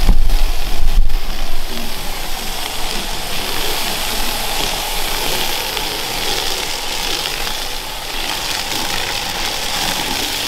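Garden-hose foam gun spraying soapy foam onto a car: a steady hiss of spray. A strong low rumble sits under it in the first second or so.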